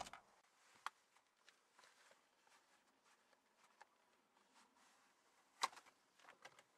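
Near silence with a few faint, sharp clicks and taps. One comes just under a second in, and the loudest about five and a half seconds in, followed by a short cluster of smaller ones.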